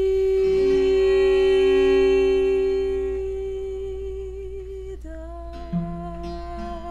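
Closing bars of a slow Brazilian ballad performed live: a long steady held note, with lower accompanying notes joining under it. About five seconds in it moves to a slightly lower note with vibrato, over a few plucked notes, as the song winds down.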